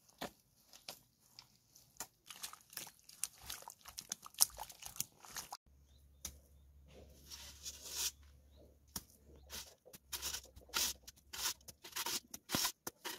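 Bare feet treading and mixing damp soil into mud, a run of uneven soft crunches. About halfway the crunching changes to hands scooping soil and setting stones around a metal cylinder.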